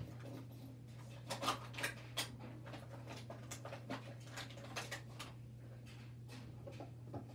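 Faint scattered clicks and light knocks, a small cluster of them about a second and a half in, over a steady low hum.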